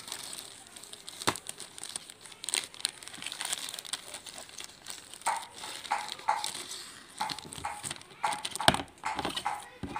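Clear plastic bag crinkling and rustling as a foam toy airplane is pulled out of it and handled, with a few sharp clicks.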